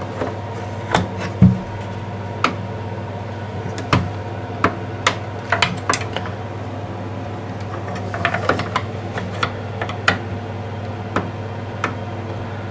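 Irregular clicks, taps and one heavier knock of hand work on the plastic solenoid coil and its clip tabs on an electric shower's solenoid valve, as the coil is being levered off, over a steady low hum.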